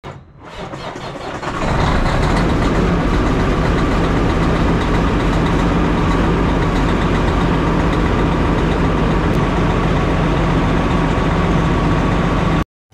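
Diesel semi truck engine running steadily, building up over the first two seconds and then holding level, before cutting off abruptly near the end.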